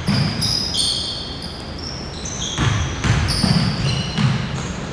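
Basketball game on a hardwood gym floor: sneakers squeaking over and over as players cut and stop, and a basketball bouncing with heavy thuds of feet, thickest about halfway through.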